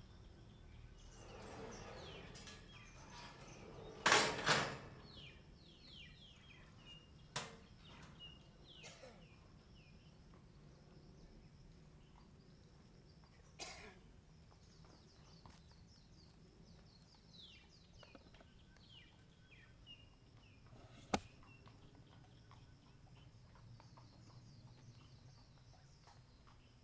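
Small birds chirping in short falling chirps over a high, evenly pulsing hiss. A loud double knock comes about four seconds in, and single sharp clicks come three more times.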